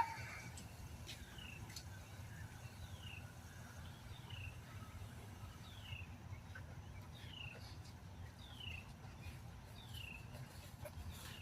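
A short click at the very start, then a bird repeating one short falling call about every second and a half, over a faint low hum.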